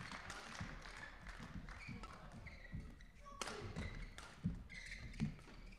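Badminton rally on an indoor court: sharp cracks of rackets striking the shuttlecock, short high squeaks of shoes on the court floor, and feet thudding as the players move and lunge.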